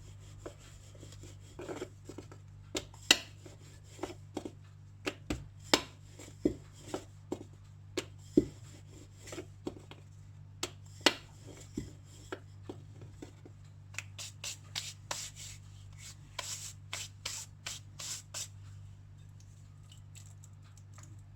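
Momo dough rounds being rolled thin with a rolling pin on a board: irregular knocks and clacks of the pin, with rubbing of dough and hands, over a steady low hum.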